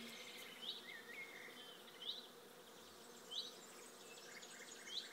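Bees buzzing in a flowering linden tree: a faint, steady hum. A bird repeats a short, high, rising chirp about every second and a half.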